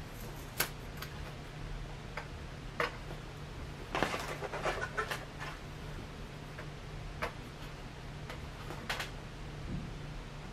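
Fingernail picking and peeling at a sticker on a plastic Nerf blaster: scattered small clicks and scratches, with a denser run of scraping about four seconds in. A low steady hum runs underneath.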